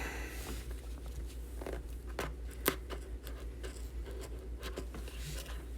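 Light clicks and rustles of hands handling a sports trading card box and its cards, with a few sharper ticks around two and three seconds in, over a steady low hum.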